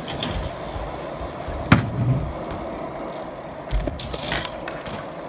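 BMX bike with its tyres rolling on concrete, with one sharp clack a little under two seconds in, the loudest sound, and a dull thump near four seconds.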